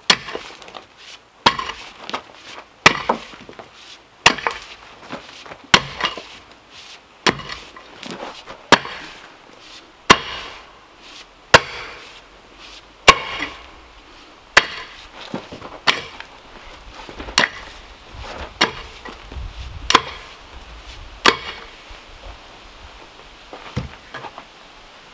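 Pickaxe striking hard, stony ground, one sharp blow about every one and a half seconds, breaking up the packed earth. The blows stop shortly before the end.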